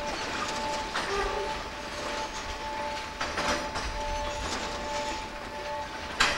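Wam 80000 two-axle covered freight wagons rolling slowly past during shunting, with a few sharp clacks from the wheels and running gear; the last, about six seconds in, is the loudest. A repeating two-note beeping tone sounds in the background.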